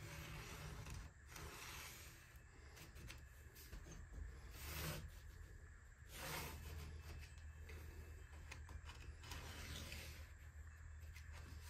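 Faint scratching and rustling of a pencil drawing along a cardboard template on construction paper, with a few soft strokes standing out about 5 and 6 seconds in, over a steady low hum.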